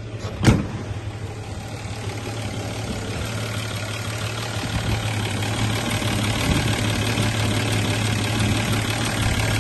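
1961 Rover 100's 2.6-litre straight-six idling steadily, growing louder as the bonnet is approached, with a light chuffing from an exhaust blow at the manifold. A single sharp thud about half a second in, as the car door shuts.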